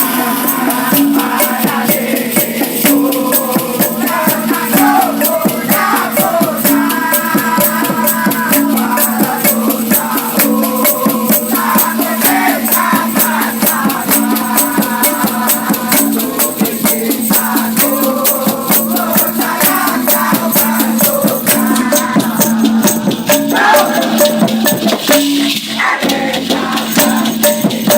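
Music: a Malay pop song with a shaker keeping a steady, fast rhythm under a wavering melodic line.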